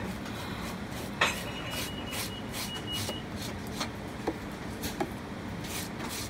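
Kitchen knife blade scraped in repeated strokes along the skin of blanched eels on a cutting board, taking off the slime. A sharp tap about a second in is followed by a faint high ring lasting a couple of seconds.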